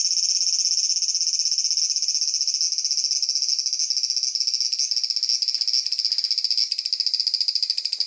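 Large brown cicada (aburazemi) shrilling in one continuous, loud, high buzz, turning more stuttering and pulsed near the end.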